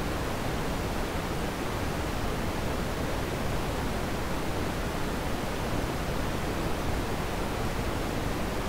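Steady background hiss with a low rumble, even and unchanging throughout.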